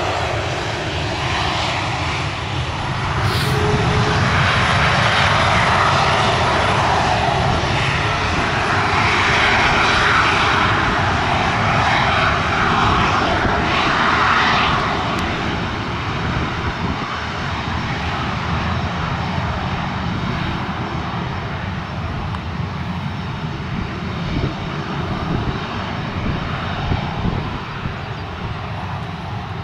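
Boeing 737-400's CFM56 turbofan engines running at taxi power as the jet rolls along the runway: a steady jet rush that grows louder a few seconds in, holds for about ten seconds, then eases slightly.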